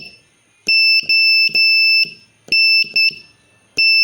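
Morse code practice tone, a single high-pitched beep keyed in dashes and dots, sending the letters O (three dashes), N (dash-dot) and T (one dash) of the word DONT, with a clear pause between letters.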